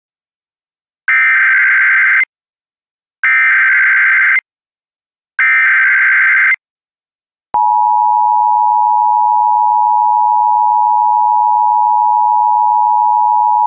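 Emergency Alert System opening for a Child Abduction Emergency (AMBER Alert): three bursts of rapid digital data tones, each about a second long, carrying the encoded alert header. About seven and a half seconds in comes the steady, loud two-tone EAS attention signal, which holds to the end.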